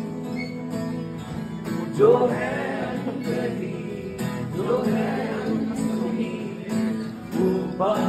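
Acoustic guitar strummed with a man singing over it in three long phrases.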